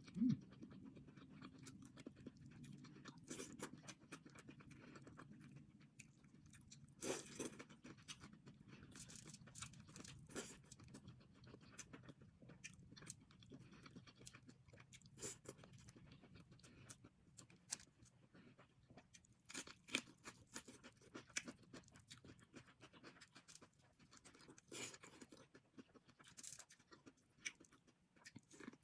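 A person eating seafood boil close to the microphone: irregular wet chewing, crunching and mouth clicks, with louder smacks every few seconds.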